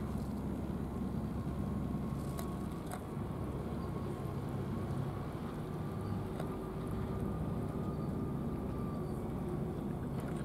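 Steady low engine rumble, with a faint steady hum above it and a few soft clicks.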